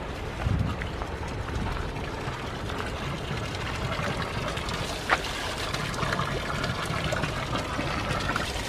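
Spring water pouring steadily from a spout and splashing onto stones as cups are rinsed under it, with a single knock about five seconds in.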